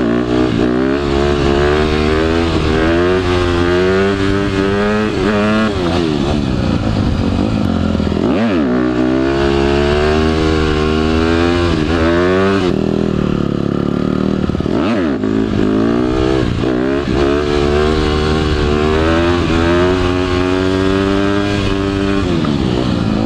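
Dirt bike engine running hard, its pitch climbing and dropping as it shifts through the gears. About three times the revs drop sharply and climb straight back as the bike slows and pulls away again.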